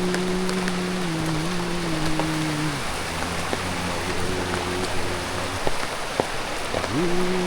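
Steady rain hiss with scattered drop ticks, under a low held hum that drops in pitch about three seconds in and rises again near the end.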